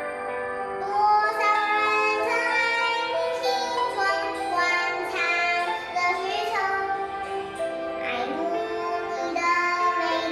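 A young girl singing a song over musical accompaniment, one note after another.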